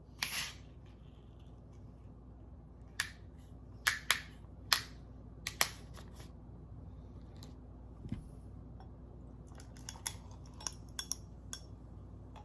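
Scattered small clicks and taps of a beer bottle and glass being handled, with a short hiss about a quarter-second in and a quick cluster of clicks near the end.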